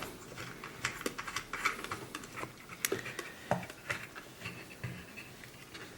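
Scattered light clicks and taps from handling a Hobart Spoolrunner 100 spool gun as its aluminum wire spool is lined up in it.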